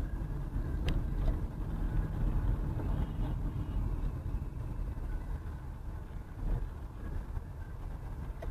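Steady low rumble of a car's engine and road noise heard from inside the cabin while driving, with a sharp click about a second in.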